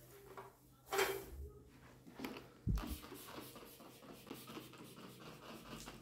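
Cleaning a painted tabletop: a short spray hiss about a second in, a knock with a low thump a little before the three-second mark, then a cloth rubbing over the surface in quick, uneven strokes.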